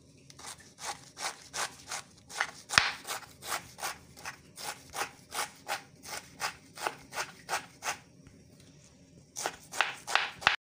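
Knife chopping shredded leafy vegetables on a wooden cutting board, in a steady run of strokes about three a second. After a short pause there are a few quicker strokes, then the sound cuts off suddenly.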